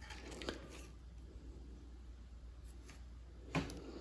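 Faint handling sounds of a small watch movement held in the fingers: a soft click about half a second in and a sharper tap near the end, over a low steady room hum.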